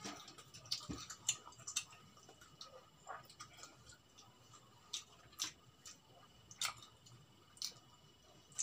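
Close-miked eating sounds of fried chicken and rice eaten by hand: irregular sharp mouth clicks and wet smacks over soft chewing.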